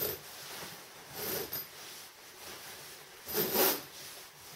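Nylon shell of a cold-weather sleeping bag rustling as someone moves inside it: a short burst a little over a second in and a louder one past three seconds.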